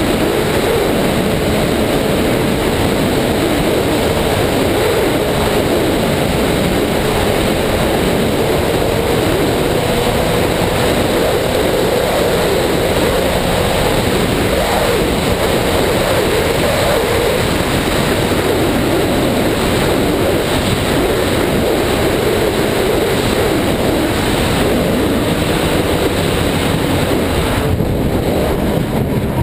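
Ski-Doo snowmobile engine running steadily at trail speed, its pitch wavering a little, over wind and track noise at the rider's helmet. The note eases near the end.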